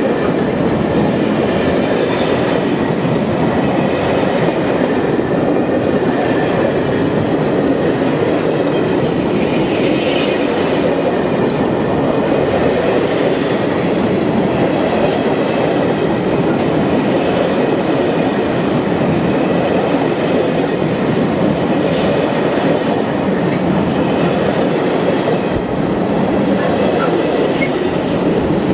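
Freight train of empty stake flat wagons rolling past: a steady, continuous rumble of wagon wheels on the rails, with a faint high-pitched wheel squeal.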